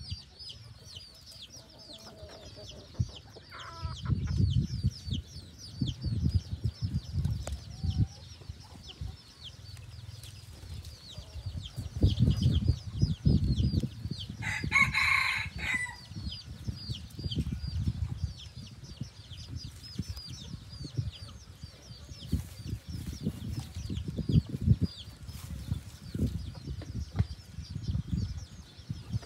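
A hybrid junglefowl rooster crows once about halfway through, a short crow of about a second and a half. Steady high chirping goes on throughout, with bursts of low rumble.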